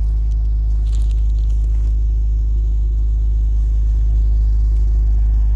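MG ZT-T 180's 2.5-litre KV6 V6 engine running steadily at idle, a smooth, even low hum with no stumble: the misfire is cured after new ignition coils and spark plugs.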